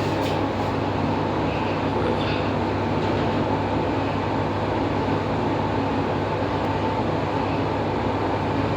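Original Fujitec passenger lift travelling down its shaft, heard from inside the car: a steady running rumble with a constant low hum and a faint whine.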